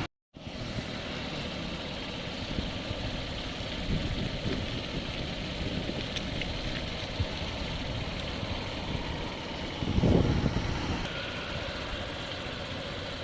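Steady running noise of a motor vehicle, with a louder swell about ten seconds in.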